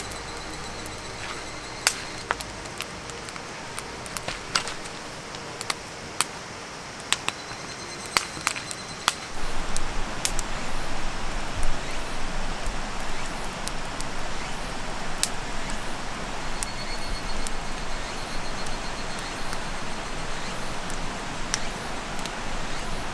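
Wood campfire crackling, with sharp pops every second or so. About nine seconds in, the louder steady rush of a river comes in, and the fire still pops now and then.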